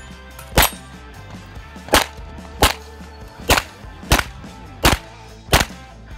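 Seven pistol shots fired rapidly at targets: one, then three quick pairs, each pair about two-thirds of a second apart.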